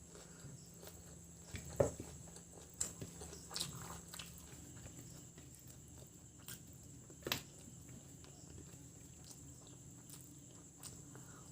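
Close-up eating sounds: soft chewing of chicken biryani and egg masala, with a few short sharp mouth clicks, the loudest about 2 s in and another about 7 s in, over a faint steady hum.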